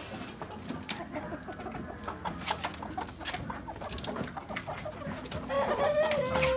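Freedom Ranger chickens clucking inside stacked plastic poultry crates, with many short clicks and knocks from the birds and crates being handled. Near the end one bird gives a louder, long drawn-out call.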